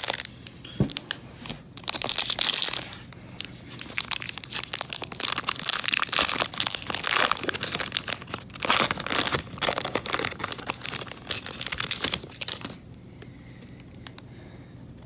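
Plastic wrapping on trading-card packaging being torn open and crinkled by hand: irregular crackling and ripping for about thirteen seconds, then stopping.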